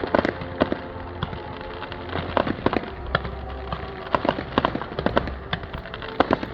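Fireworks display going off: many sharp bangs and pops in a rapid, irregular series, over steady background music.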